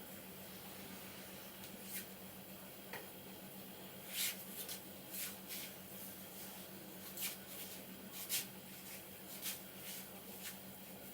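Hands rubbing and patting hair and scalp during a head massage: about ten short, soft swishes at irregular intervals.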